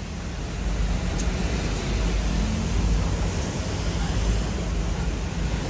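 Parked buses' engines idling, a steady low rumble with background hiss.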